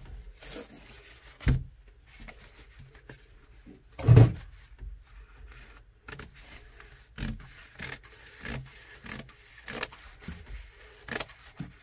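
Shelf liner being rubbed and slid across the floor of a wooden kitchen cabinet, with scattered light knocks against the cabinet. One heavy thump comes about four seconds in and is the loudest sound.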